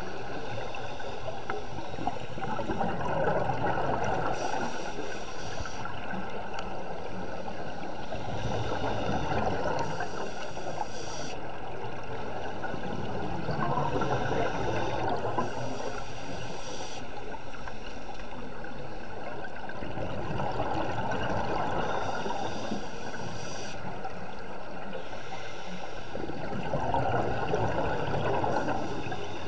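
Scuba diver breathing through a regulator underwater: a rush of exhaled bubbles about every six seconds, five times, over steady underwater background noise.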